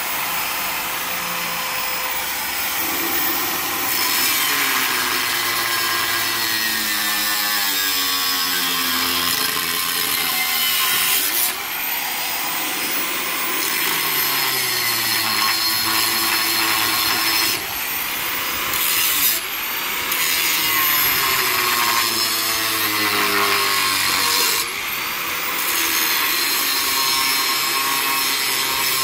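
Angle grinder cutting through the steel shell of a fridge compressor to take its top off. It is a steady grinding, broken by a short change every several seconds.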